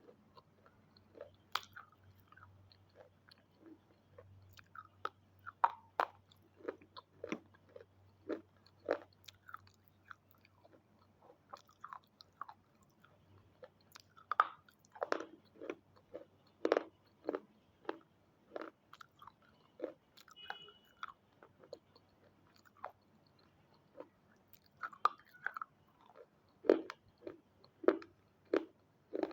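A person biting into and chewing brittle red triangle pieces close to the microphone: irregular sharp crunches, many in quick clusters.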